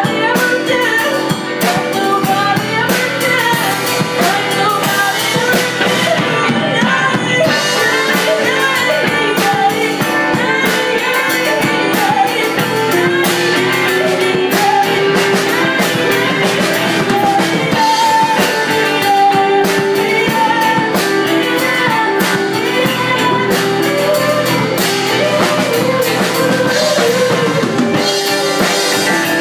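Live rock band playing: a woman singing lead into a microphone over electric guitars, bass guitar and a drum kit, with steady drum hits throughout.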